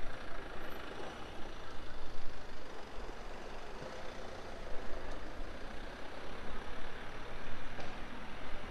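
City street traffic: motor vehicles running past amid the steady noise of the street.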